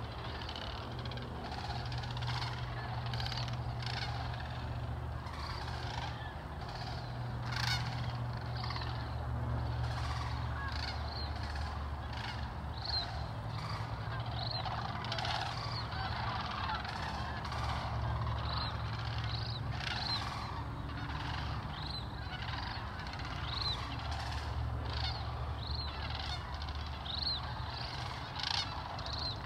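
A large flock of sandhill cranes calling: a continuous chorus of overlapping calls, with many short calls standing out, over a low steady rumble.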